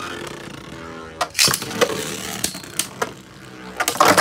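Beyblade Burst tops whirring in a plastic Beystadium and clashing with several sharp clacks. Near the end comes a louder clatter as one top bursts apart.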